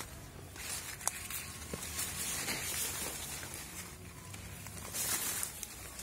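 Rustling and footsteps as a person moves through undergrowth, with swells of rustling and a few light clicks.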